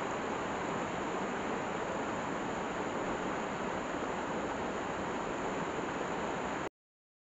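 Fast mountain stream rushing over rocks: a steady, even rush of water that cuts off abruptly near the end.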